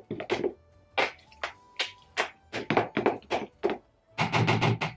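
A spoon stirring a thick cream mixture in a bowl, knocking and scraping against the bowl's side in quick, irregular taps, two or three a second, with a denser run of scraping near the end. The whisky is being mixed into the whipped cream.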